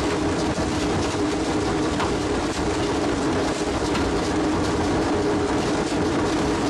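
Rock crusher running while granite is fed in: a steady loud machine drone with frequent sharp cracks and knocks of stone breaking.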